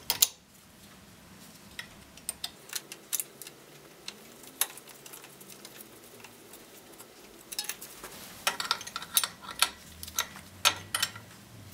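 Hand wrench clicking and clinking against the motor mount bolts of an electric bike's rear-wheel motor as they are tightened. Scattered light metal clicks at first, then a quick run of them over the last few seconds.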